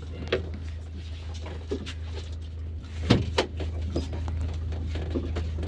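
Cabin sound of an IVECO Daily bus under way: a steady low engine drone, with a couple of sharp knocks or rattles about three seconds in.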